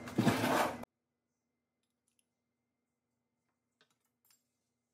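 A loud stretch with a voice in it cuts off abruptly under a second in. After that there is near silence, with only a faint steady hum and a few faint clicks near the end.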